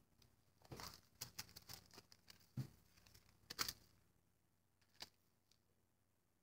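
Thin plastic stencil sheets in clear plastic sleeves rustling and crinkling as they are handled, in a few short crinkles with quiet between.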